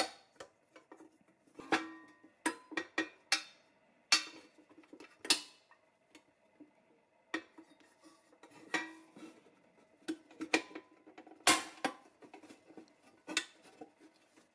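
Metal parts of a vintage pressed-steel Tonka toy truck being handled and knocked together: irregular sharp metallic clinks and taps, each with a short ringing tone, the loudest a little before the end.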